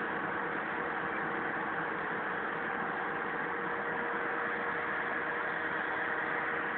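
Kato mobile crane's engine running steadily, heard from inside its cab while driving, with an even rumble and a faint steady whine.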